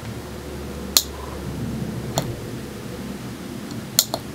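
Tactile push button on an electronic LED dice board clicking as it is pressed to roll the dice: four sharp clicks, the last two close together near the end, over a steady low hum.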